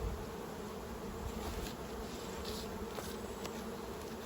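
Honey bees buzzing around an opened hive, a steady drone.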